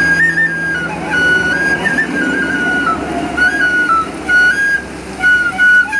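Wooden end-blown flute playing a high melody in short phrases, moving in small steps with quick trills and brief breaks between phrases.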